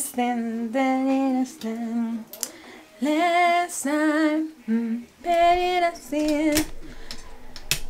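A woman singing a short phrase unaccompanied: several held notes, a few with a wavering vibrato, broken by short pauses.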